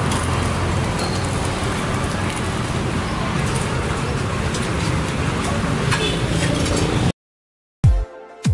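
Roadside food-stall ambience: steady traffic rumble with a few light clinks of dishes. About seven seconds in it cuts to brief silence, and electronic music with a hard beat starts near the end.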